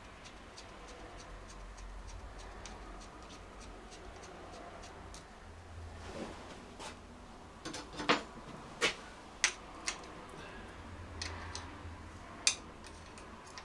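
Sharp metallic clicks and clinks of a ring spanner being fitted to and turned on the outer crankcase bolts of a Triumph Trident T150V engine, the bolts being nipped up before final torquing. After a quiet start come about ten scattered clicks, irregularly spaced.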